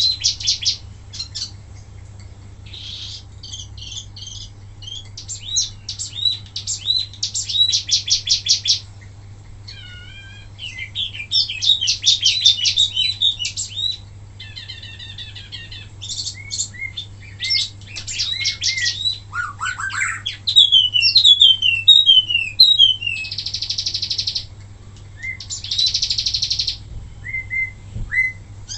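A wambi mini songbird singing in rapid, varied phrases. Quick runs of repeated chirps and trills are broken by a series of falling whistled notes and two loud buzzy bursts near the end, over a steady low electrical hum.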